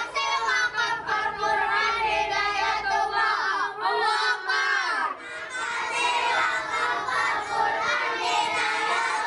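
A group of children chanting together in unison, half sung and half shouted.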